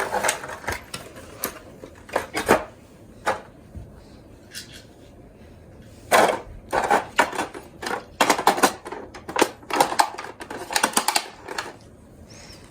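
Toy die-cast minicars being handled and clicked against their plastic packaging: irregular clicks and clattering, coming thick and fast in the second half.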